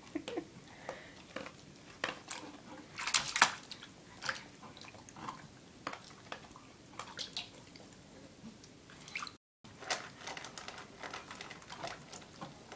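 Water splashing and sloshing in a stainless steel dog bowl as a toddler's hands paddle and slap in it: irregular small splashes, the loudest cluster about three seconds in.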